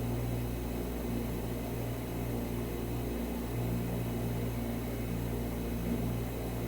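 Steady low hum with a faint even hiss, its main tone dipping briefly about three seconds in.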